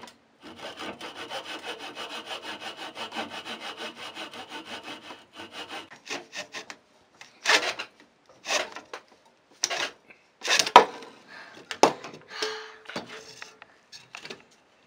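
A hand backsaw cutting a wooden strip held in a vise. It starts with quick, even strokes for about five seconds, then slows to separate, louder strokes with pauses between them, with a sharp knock about eleven seconds in.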